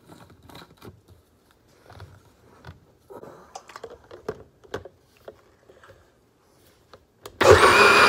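A few scattered clicks and knocks as the blender is readied, then about seven seconds in an electric blender switches on and runs loud and steady, blending hot bone broth with coconut oil and spices into a froth.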